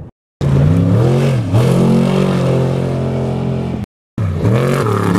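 Off-road race truck engine revving hard under full acceleration. Its pitch drops and climbs again at a gear change about a second and a half in. The sound cuts out briefly twice, once just after the start and once near four seconds.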